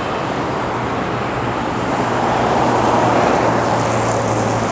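Traffic on a wide multi-lane city avenue: the steady tyre and engine noise of passing cars, swelling about two seconds in, with a low steady engine hum underneath.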